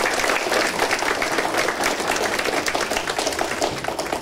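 An audience of several dozen people applauding steadily.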